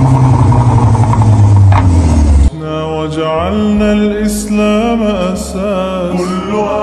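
BMW sedan's engine revving loudly through its new quad-tip exhaust, the pitch falling as the revs drop. It cuts off abruptly about two and a half seconds in, and a voice singing an Arabic nasheed follows.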